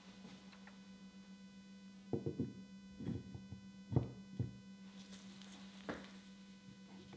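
Soft knocks and clunks of steel lathe-chuck parts being handled as the back cover is seated on a three-jaw chuck body. There are about half a dozen, between two and six seconds in, over a steady low hum.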